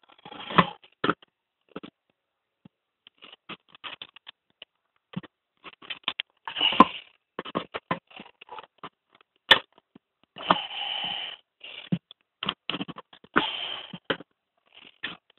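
Handling noises from repair work on a spin dryer: irregular clicks and knocks with a few short scrapes, the sharpest click about halfway through.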